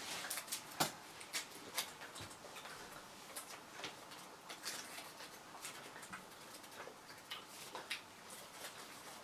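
Faint, irregular small clicks and crinkles of a gum wrapper being fiddled with in the hands, along with gum being chewed.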